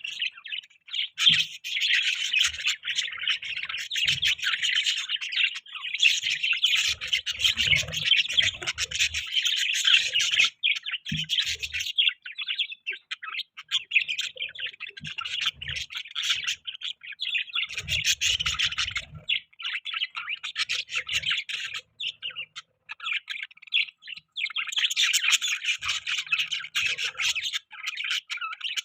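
Budgerigars chirping and chattering in rapid, continuous warbling runs, with a few short pauses, plus occasional soft low thumps.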